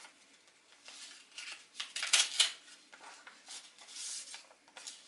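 Paper rustling and tearing as a greeting-card envelope is opened: short, irregular scratchy bursts, loudest about two seconds in.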